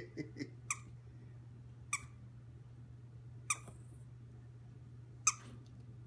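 Small long-haired terrier giving short, high-pitched squeaky yips: three quick ones at the start, then single ones every second and a half or so.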